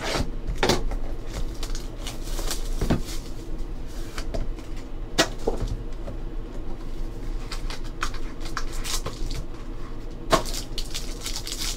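Cardboard of a Panini football card hobby box being handled and opened by hand: scattered sharp knocks, taps and scrapes as it is set down and its lid worked open and lifted off, over a steady low hum.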